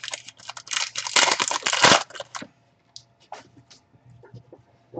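Trading card pack wrapper torn open and crinkled, a loud dense crackle lasting about two and a half seconds, then a few soft clicks as the cards are handled.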